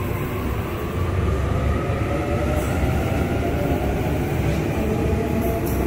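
Electric passenger train running at a station platform: a steady low rumble with a motor whine of several tones rising slowly in pitch.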